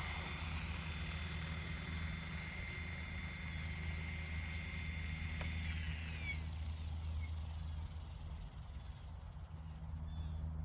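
Electric RC helicopter hovering low, with a steady rotor hum and a high motor and gear whine. About six seconds in the whine slides down in pitch as the helicopter sets down on the grass and the head speed drops.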